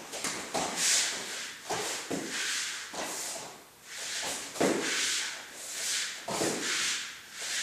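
A foam pool noodle swung back and forth, making repeated airy swishes, while bare feet thud and shuffle on foam floor mats as a person jumps and dodges.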